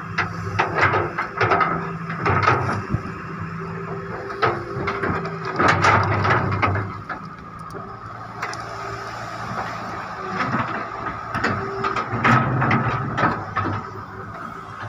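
John Deere 595D excavator working: engine running steadily with a steady high whine over it, and many sharp metallic knocks, clanks and scrapes coming in clusters.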